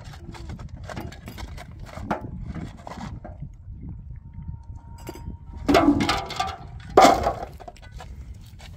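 Pick striking stony ground over and over, loosening rock and earth with short knocks and clinks. Two much louder hits come near the end, about a second apart.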